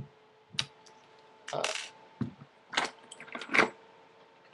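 Parts of a Tippmann X7 Phenom paintball marker being handled and worked apart: a series of clicks, clatters and a short scrape, the loudest clack about three and a half seconds in, as the air nozzle that holds the flex valve is worked loose.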